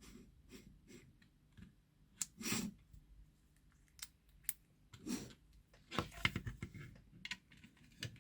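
Faint, scattered clicks and brief scrapes of a small driver unscrewing the bolts of a handheld remote's case, with handling of the remote between turns; a quick run of clicks comes about six seconds in.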